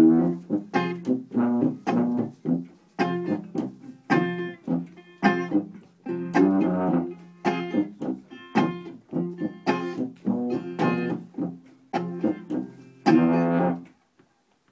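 Instrumental intro on banjo and tuba: the banjo is picked in a steady rhythm over tuba bass notes. The music breaks off briefly near the end.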